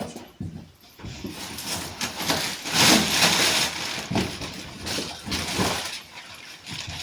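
Footsteps walking at an even pace, with a louder rustling, scraping noise about three seconds in.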